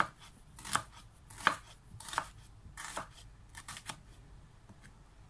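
Kitchen knife slicing a halved yellow onion and knocking on a wooden cutting board: a string of sharp chops roughly one a second, with a quicker run of cuts about three to four seconds in.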